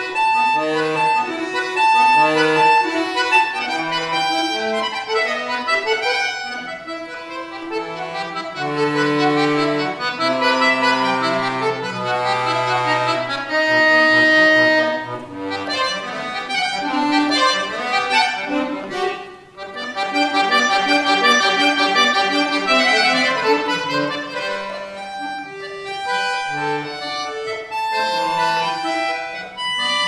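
Solo button accordion (bayan) playing a concert piece: quick runs of short notes in the treble over a moving bass line, with a short break about twenty seconds in before the playing resumes.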